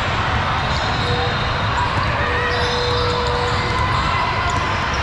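Basketballs bouncing on a hardwood court against a steady din of many voices in a large, echoing sports hall.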